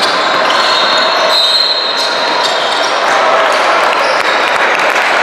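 Basketball bouncing on the court during a game, over a steady din of spectators' voices.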